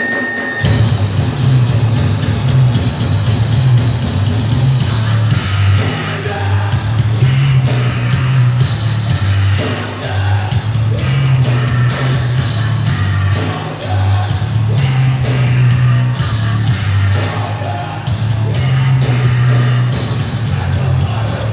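Heavy metal band playing live with singing; the full band comes in abruptly about half a second in on a heavy, low riff.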